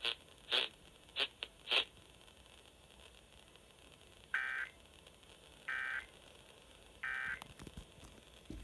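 Emergency Alert System end-of-message data tones on FM radio: three identical short, buzzy digital bursts about 1.3 s apart in the second half, signalling the end of the flash flood warning. A few short blips come in the first two seconds.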